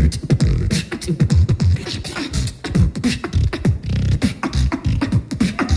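Beatboxing into a handheld microphone, amplified through a PA: a fast, steady beat of deep kick-drum booms that drop in pitch, cut through by sharp snare and hi-hat clicks.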